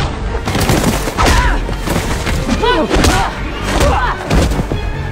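Hand-to-hand fight sound effects: a quick run of punches and body blows landing, mixed with short grunts and cries of effort.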